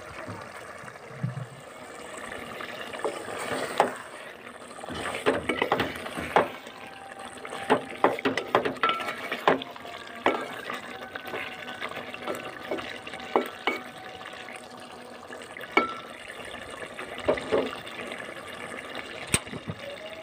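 Thick chicken curry gravy bubbling and popping as it simmers in a metal pot, with irregular pops. A wooden spatula stirs through it and scrapes the pot.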